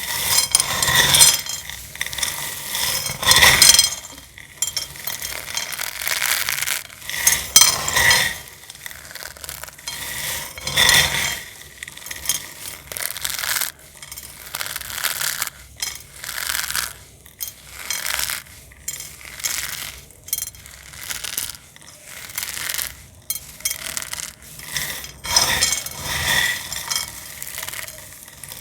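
Crispy dried cornstarch film crackling and crunching as it is handled and broken, in irregular bursts of sharp crackles and scrapes, with louder clusters a few times.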